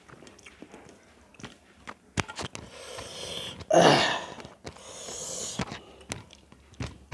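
Close-up eating sounds: a man chewing a mouthful of rice and curry, with wet mouth clicks and smacks, while his fingers mix rice on a steel plate. A louder breathy, wet burst comes a little under four seconds in.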